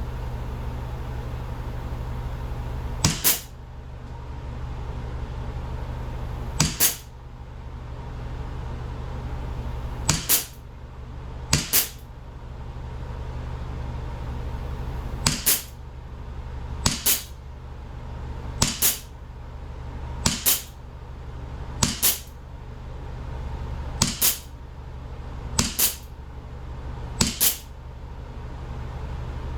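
A CO2-powered replica Springfield 1911 air pistol firing about twelve single shots at irregular intervals of one and a half to four seconds, each a sharp crack.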